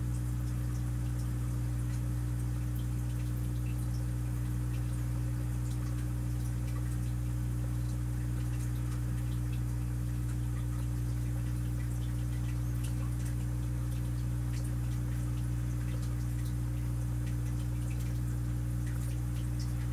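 Aquarium filter running: a steady low hum with light, irregular trickling and dripping of water.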